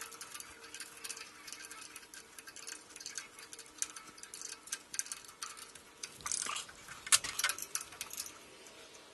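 Small metallic clicks and taps of parts and a hex key being handled at the lathe's ball screw bearing housing, irregular throughout, with a denser run of louder clicks about six to seven and a half seconds in.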